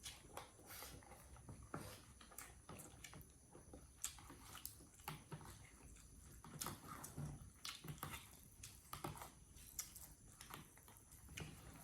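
Faint, irregular small clicks and crunches of a monkey biting and chewing food.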